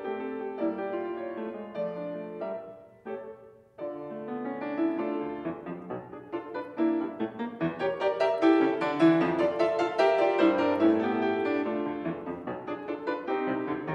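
Solo grand piano playing a classical piece. The music thins almost to silence about three seconds in, then builds into a louder passage of quick repeated notes.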